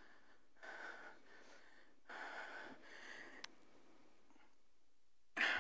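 Faint breaths of a man into a microphone, two or three of them, with a single sharp click about three and a half seconds in and a louder breath near the end.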